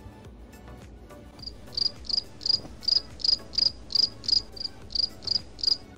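A cricket chirping in a steady rhythm, about three high chirps a second, starting about a second and a half in.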